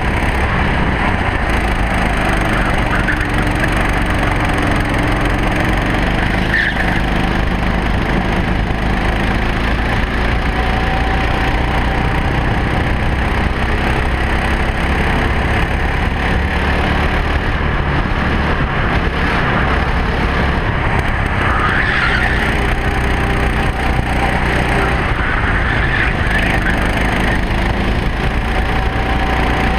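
Racing kart engine running hard on track, its pitch rising and falling as the driver accelerates out of and lifts into the corners, under a steady low wind rumble on the onboard microphone.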